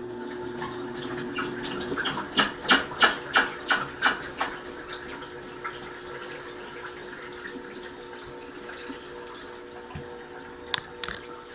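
Toshiba AW-404 top-loading washing machine running with a steady motor hum and water sounds. About two seconds in it gives a run of sharp knocks, about three a second for some two seconds, then a few sharp clicks near the end. The owner calls it an abnormal noise but thinks it is probably no real problem.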